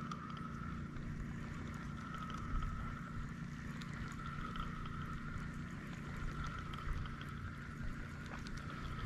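Small boat engine running at a steady pace: a continuous low drone with a steady higher tone over it and a few light clicks.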